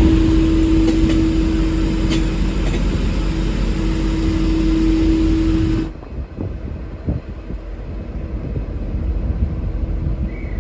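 V/Line N class diesel-electric locomotive running with a steady hum over a loud rumble. The sound cuts off suddenly about six seconds in, leaving quieter wind rumble on the microphone.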